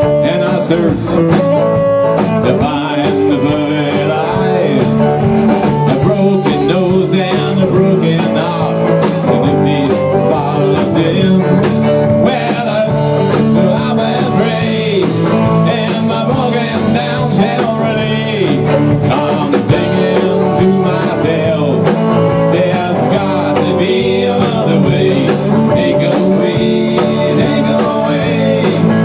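Live rock band playing an instrumental passage between verses: electric guitars, electric bass and a drum kit playing together.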